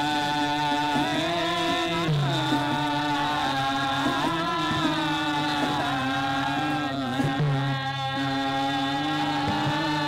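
Traditional Gurung folk song in the slow thade bhaka style, used as background music: a drawn-out chant-like melody that glides up and down over steady held tones.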